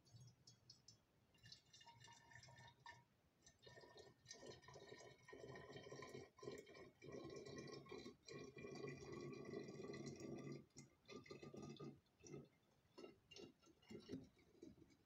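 Homemade herb syrup being poured from a spouted jug into a glass bottle: a faint trickle of liquid into glass that grows fuller through the middle and tapers off near the end.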